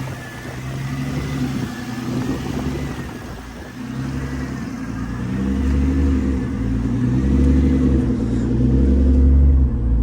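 Twin-turbocharged Infiniti G35 V6 engine running cold, not yet warmed up. It gets louder and fuller from about halfway through.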